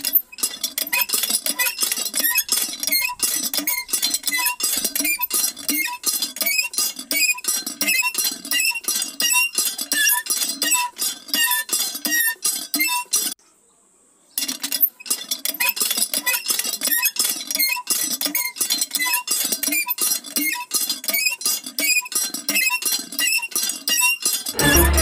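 Lever of a miniature hand-made water pump being worked quickly, squeaking and clicking at about two to three strokes a second, with a short stop about halfway through.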